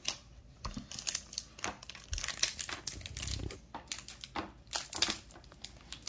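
Foil wrapper of a Pokémon trading card booster pack crinkling in irregular crackles as it is handled and pulled open.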